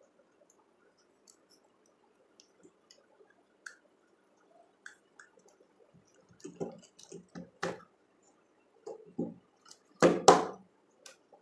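Hand-wiring noises from connecting a wire to a contactor coil terminal. Scattered faint clicks come first, then busier handling and rustling from about six seconds in, and two sharp, louder clicks about ten seconds in.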